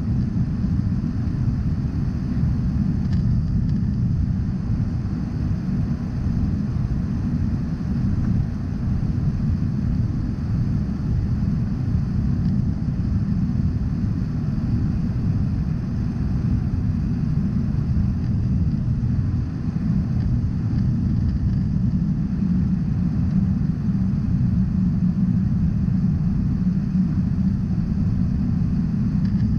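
Steady low rumble of an airliner cabin in flight: engine and airflow noise heard from inside the cabin.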